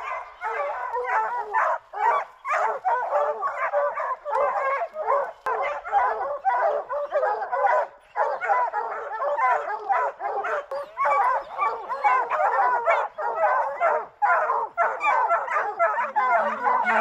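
A pack of bear hounds baying treed, many dogs barking and bawling over one another without a break: the sound that tells hunters the hounds have a black bear up a tree.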